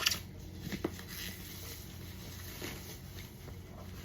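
A sharp click right at the start, followed by a few faint taps and light handling noises in a quiet small room.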